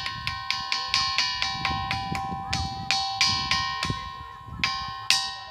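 A ringing stone struck repeatedly with another stone, about three to four quick strikes a second. Each strike rings out with clear, sustained bell-like tones like a temple bell; the strikes pause briefly about four seconds in, then resume.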